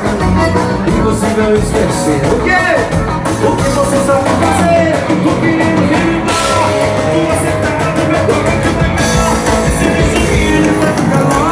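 Live band playing loud accordion-led dance music on piano accordion, electric guitar and bass over a steady beat, with a singer's voice over it.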